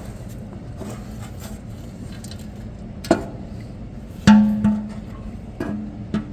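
Metal clanks from tools and parts on an Allison automatic transmission being taken apart: four separate knocks, the loudest about four seconds in ringing briefly with a pitched tone, over a steady low hum.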